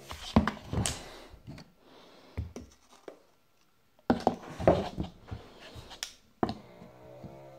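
Protein powder being scooped: a scoop scraping in the tub and knocking against the shaker, in two bursts of clicks and scrapes with a short pause between.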